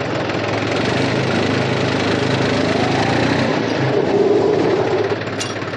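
New Holland tractor's diesel engine running as the tractor drives forward and brakes, with no grinding or squeal from the oil-immersed brakes, which have just been cleaned and refilled with fresh UTTO oil. The engine note rises slightly near the middle and is loudest about four seconds in.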